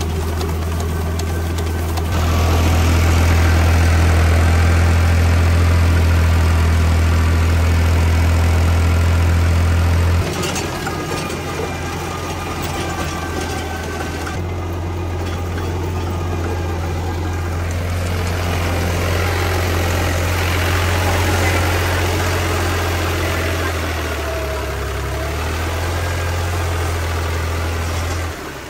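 Diesel tractor engine running at a steady speed. Its level steps up sharply about two seconds in and drops abruptly about ten seconds in.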